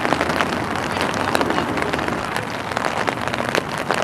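Steady rain, with many sharp drop hits close to the microphone.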